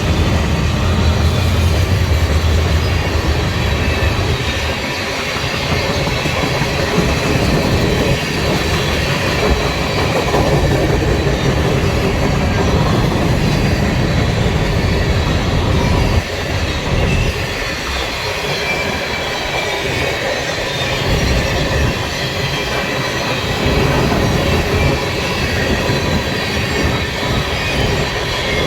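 A train rolling past on the rails: a heavy low engine rumble eases off in the first few seconds, then the cars' wheels clatter over the track with some wheel squeal.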